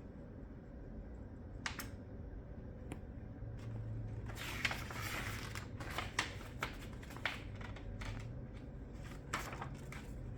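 Highchair parts being handled and fitted together: scattered clicks and knocks, with about a second of rustling near the middle.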